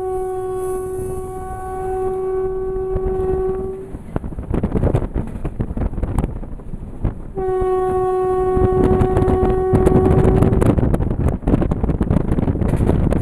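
WAP-4 electric locomotive's horn sounding two long, steady single-note blasts, the first about four seconds and the second about three, a few seconds apart. Underneath runs the rumble and clatter of the train's wheels on the rails, louder in the second half.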